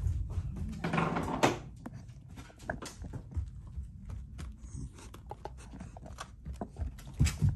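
A Shiba Inu and a black Labrador moving about on a tatami floor: scattered short clicks and taps of paws and claws, with a louder rough scuffling noise lasting under a second about a second in.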